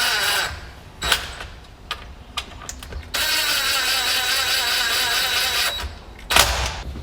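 Power drill running in two bursts: the first winds down just after the start, then after a click a second steady run lasts about two and a half seconds from about three seconds in.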